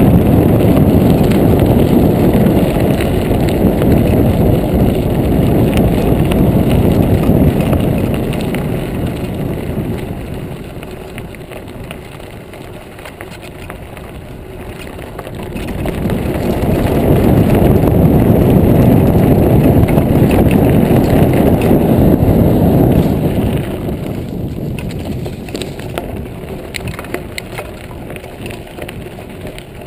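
Wind buffeting the microphone of a camera on a moving mountain bike, a loud low rumble that eases off about a third of the way in, swells again and fades near the end, over the tyres rolling on a gravel trail. Light clicks and rattles from the bike come through in the quieter stretch near the end.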